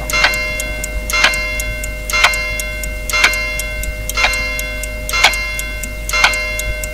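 Countdown-clock sound effect: one sharp, ringing metallic tick each second, seven in a row, over a steady low hum.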